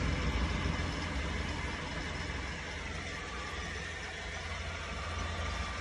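Mahindra 1640 HST tractor's diesel engine idling steadily, heard from inside the cab: a low, even hum with a wash of noise above it.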